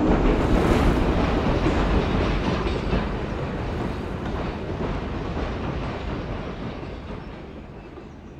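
Train running, a dense rumble with fast rail clatter, gradually fading away.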